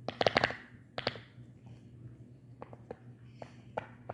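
Silicone push-pop fidget toy being pressed: a quick run of bubble pops at the start, another pop about a second in, then a few softer single pops.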